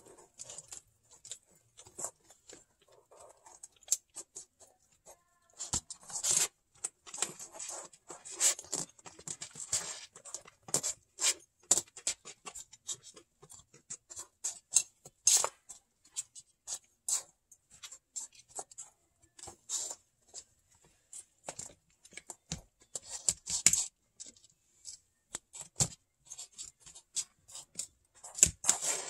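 Kittens pawing and nosing through paper coin flips and small clear plastic coin stands: irregular rustling, scratching and light clicking taps, busier and louder in clusters after the first few seconds.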